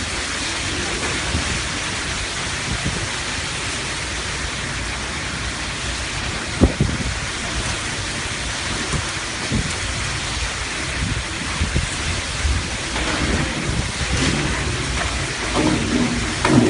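Torrential tropical downpour driven by strong wind, a steady hiss of heavy rain with low gusting rumble underneath. One sharp knock stands out about seven seconds in.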